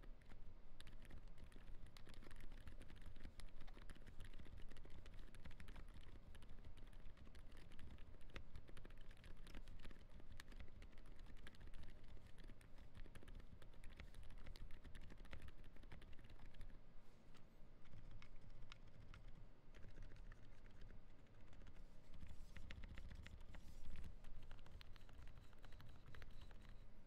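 Steady fast typing on a Zoom75 gasket-mounted custom keyboard with a flex-cut polycarbonate plate and hand-lubed Gazzew U4 silent tactile switches: a continuous stream of soft, quiet keystrokes.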